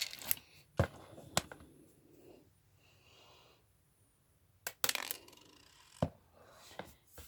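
Small plastic Lego pieces clicking and clattering as a few are taken out of a pick-a-brick cup: a handful of sharp clicks early on and another cluster later, with a quiet stretch between.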